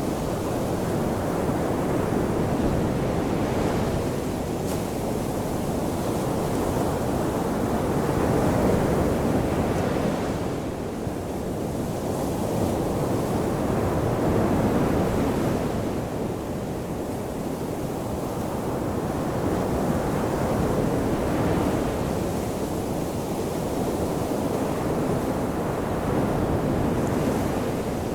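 Ocean surf washing onto the shore: a continuous rushing wash that swells and eases in slow surges every five or six seconds.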